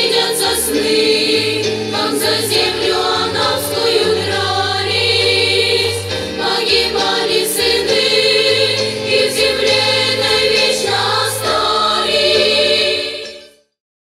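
A choir of schoolgirls singing a song in unison over an instrumental backing track, fading out near the end.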